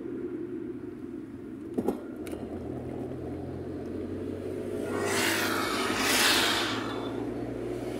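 Car cabin road and engine noise, a steady low rumble, while driving. About five seconds in, an oncoming vehicle passes with a whoosh that swells and fades. Two short clicks come about two seconds in.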